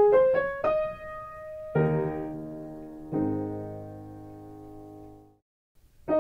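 Piano interlude music: a quick run of single notes, then two chords struck about a second apart that ring on and fade away. After a short pause the melody starts up again near the end.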